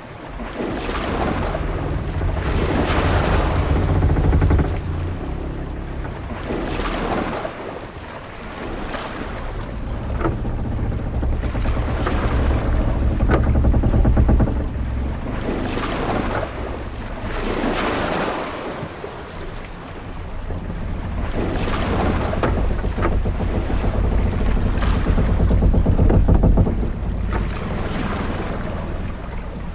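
Sea waves washing against a ship's hull in surges every three to four seconds, over a steady low rumble of wind.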